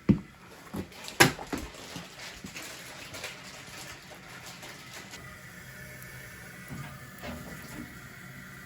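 Toilet tank filling through its fill valve, a steady hiss of running water that settles into a faint high whistle about halfway through. A couple of sharp knocks sound in the first second and a half.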